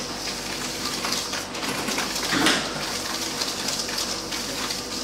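Whisk scraping round a stainless-steel bowl as soft butter and caster sugar are creamed by hand: a steady, gritty, rain-like scratching, with one louder scrape about two and a half seconds in.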